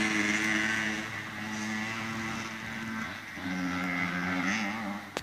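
Small two-stroke dirt bike engines, a Yamaha YZ80 and a PW80, running as the bikes ride away along the track. The engine note holds steady, drops off about three seconds in, comes back for a second or so, then fades.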